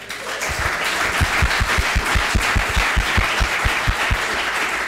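Audience applauding, with a regular low thump about five times a second that stops about four seconds in.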